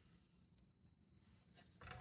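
Near silence: room tone, with a faint short sound near the end.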